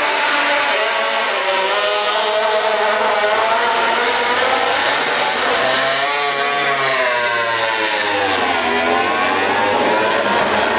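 Several Grand Prix racing motorcycles passing one after another on the straight. Their engines overlap loudly, and the pitch rises and falls as each bike goes by.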